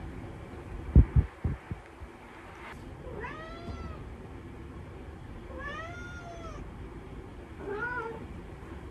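Domestic cat meowing three times, each call rising then falling in pitch, the last one shorter: the cat asking its owner to pick it up. A few low thumps about a second in are the loudest sounds.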